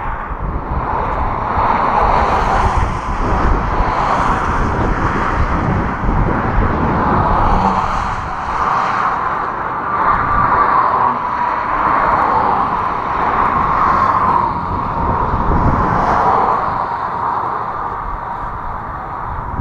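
Passing road traffic, a steady rush of vehicles that swells and fades every couple of seconds, over a rumble of wind on the microphone.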